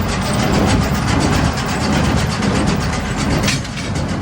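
Massey Ferguson 2270 large square baler running on the tractor's power take-off, its mechanism clattering in a rapid, even rhythm over a low rumble. It is being test-run after a sheared shear bolt was replaced.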